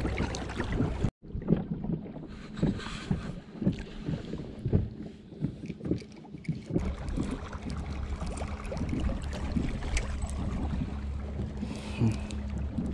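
Steady low hum of the small boat's motor as it trolls, coming in about seven seconds in, with knocks and clatter of rod, reel and gear being handled.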